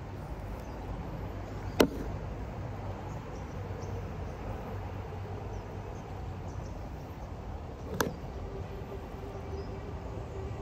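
Steady low outdoor rumble of a city background, with two sharp knocks about six seconds apart, the first about two seconds in: a hand knocking on a table or handling the headphones on it.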